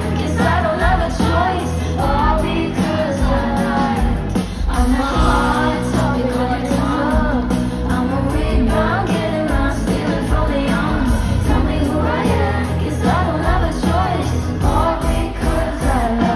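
Live pop concert: a woman singing over a full band, loud and continuous.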